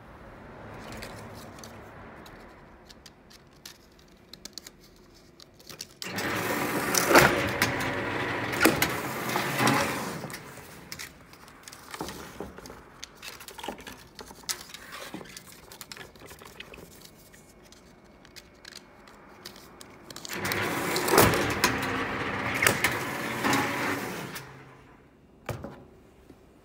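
Meiwa MX semi-automatic strapping machine running two strapping cycles about fourteen seconds apart. Each is a few seconds of motor whirring and clacking as it pulls the plastic strap tight round the crate, seals it and cuts it. Lighter clicks of the strap and crate being handled fall in between.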